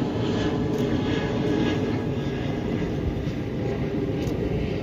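Jet engines of Boeing 747 and 777 freighters taxiing after landing: a steady, distant rumble.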